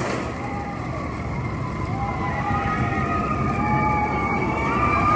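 S&S steel roller coaster train running along the track, a rumble with several whining tones that glide up and down with its speed, getting louder toward the end.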